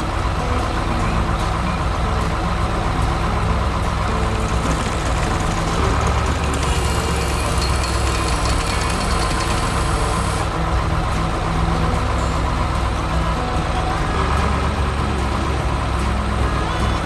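Heavy truck engine idling steadily, with a hiss laid over it for a few seconds in the middle.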